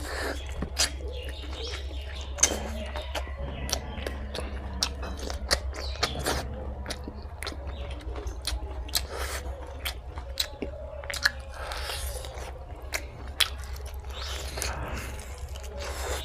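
A person chewing and eating pork fry with rice close to the microphone: many short, sharp mouth clicks and smacks at an irregular pace, over a steady low hum.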